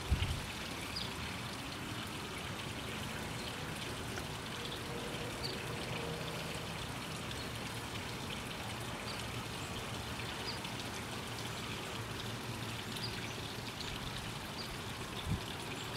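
Tiered garden fountain, water trickling and splashing steadily.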